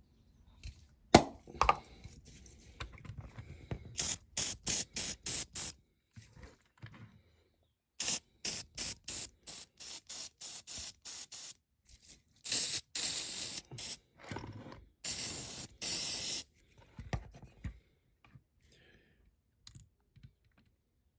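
A spray squirted in short hissing bursts, about three a second in two quick runs, then in two longer sprays of a second or more each. A sharp knock comes about a second in.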